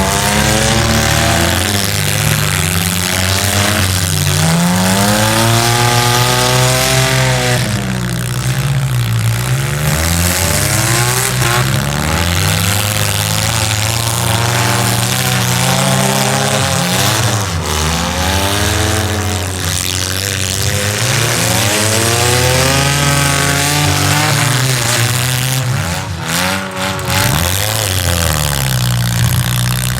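Demolition derby car engines revving hard and dropping back again and again as the cars accelerate and back up, at times more than one engine at once.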